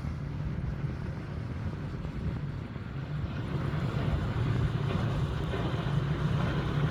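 Motorboat engine running steadily with a low hum, growing louder from about three seconds in.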